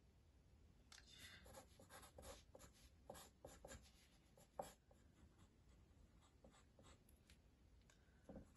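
Faint pencil scratching on drawing paper in a run of short sketching strokes, with a sharper tap about four and a half seconds in.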